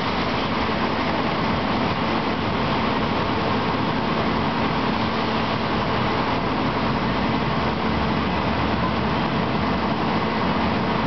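Fire trucks' engines running steadily at the scene, a loud, even rumble with a constant low hum.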